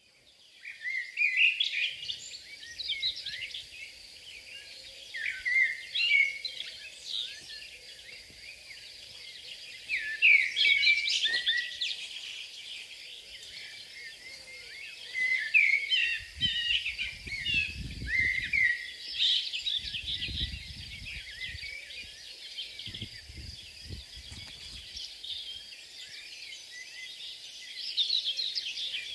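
Many small birds chirping and singing together in a busy, overlapping chorus, with a faint steady high hiss under it. A few low rumbles come in just past the middle.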